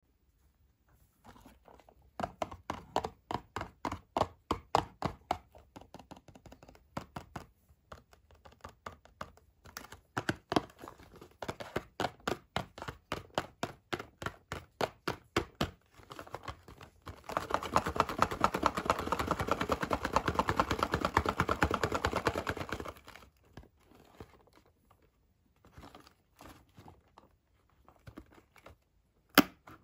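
Fingernails tapping on a cardboard Kinder Surprise box in quick rows of taps, about four a second, for the first half. This is followed by about six seconds of steady scratching across the cardboard and then a few scattered taps near the end.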